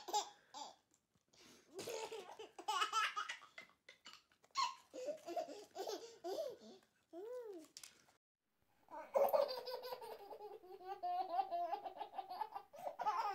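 Young children laughing: a toddler giggling in repeated bursts with short pauses, then a baby's long run of laughter in the last few seconds.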